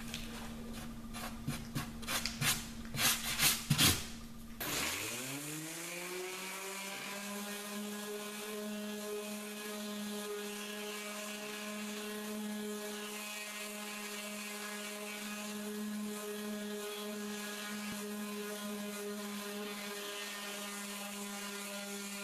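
A few seconds of clicks and rustles, then an electric random orbital sander starts, its motor rising in pitch to a steady run. It sands a cured patch of super glue and cherry sanding dust flush on the wooden strip deck, and stops right at the end.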